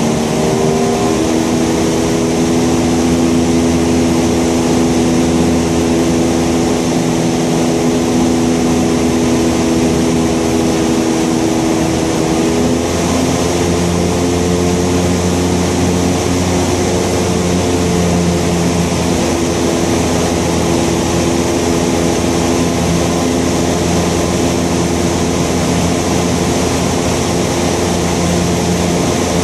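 Thruster T600N microlight's engine and propeller running steadily in flight, with loud wind rush over the airframe. The engine note shifts slightly about a second in and again around halfway through.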